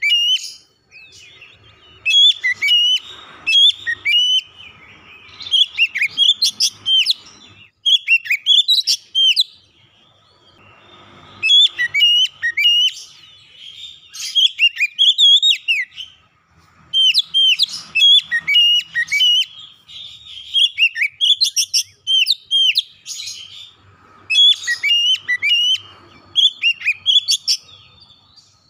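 Oriental magpie-robin singing: about a dozen bursts of rapid, loud whistled and chattering notes with quick up-and-down pitch sweeps, separated by short pauses.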